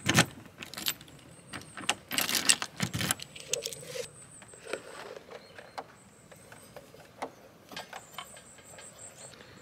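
Hands opening a caravan's drawbar gas locker and handling the gas cylinder: a string of clicks, knocks and light rattles, with a denser clattering scrape about two to three seconds in.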